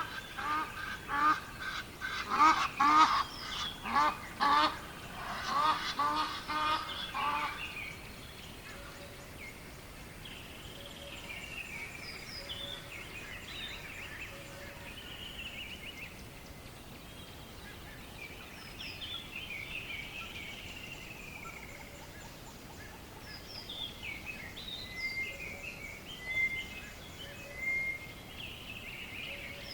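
Birds honking, goose-like, in a fast repeated series for the first several seconds. After that come softer, higher chirps and warbling calls from other birds over a faint steady outdoor hiss.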